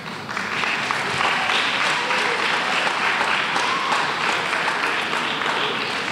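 Audience applauding as the chorus is introduced: dense, even clapping that swells in the first half second, holds steady, and begins to die away near the end.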